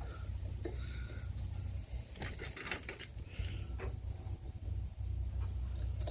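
Steady high hiss over a low hum, with a few light metal clicks and taps about two to four seconds in from handling the string trimmer's muffler screws and tools.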